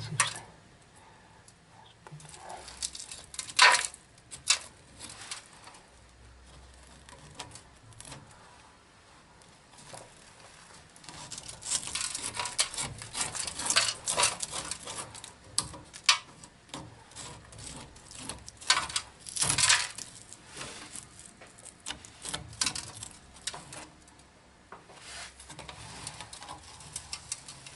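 Fingers picking and scraping loose rust and scale off a corroded, cracked cast-iron sewer pipe, the flakes dropping and clinking onto a lid below. Scattered scratches and small sharp ticks, busiest in the middle.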